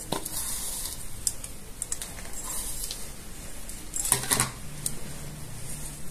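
Light scattered clicks and rustles of hands spreading and pressing chopped toasted almonds over vermicelli in a metal ring mould, with a short cluster of louder clicks about four seconds in.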